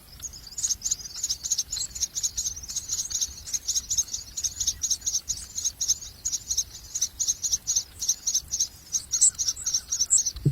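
Common myna chicks begging: a continuous run of short, high, raspy chirps, several a second, growing louder near the end.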